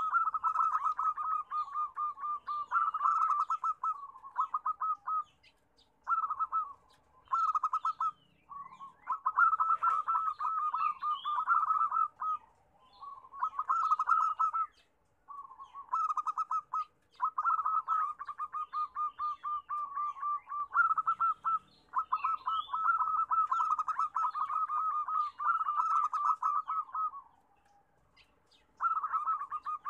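Zebra doves (perkutut) cooing: long runs of rapid staccato notes, phrase after phrase with short pauses between them. Faint high chirps sound over the cooing.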